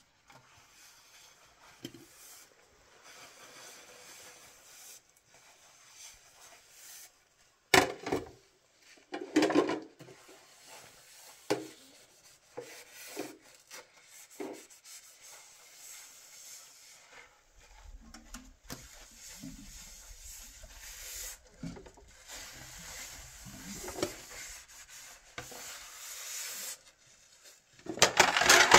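Intermittent rubbing and scraping of handwork, with scattered sharp knocks. The loudest knock comes about eight seconds in, and a louder burst comes near the end.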